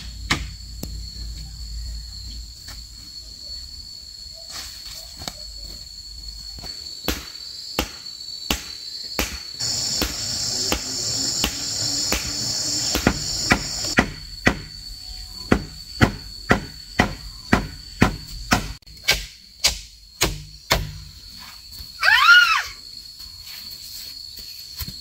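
Forest insects droning steadily at a high pitch, louder for a few seconds near the middle. Over them runs a series of sharp knocks, like a tool striking bamboo or wood: sparse at first, then regular, about one and a half a second, from about halfway. A brief falling call is heard near the end.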